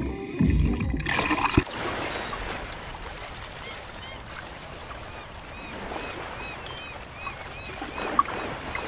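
Sea water sloshing and splashing around a swimmer. It opens as a muffled underwater rumble with the top end cut off, and after a sharp click about a second and a half in it turns to an even wash of water noise, with faint short high chirps repeating through the middle.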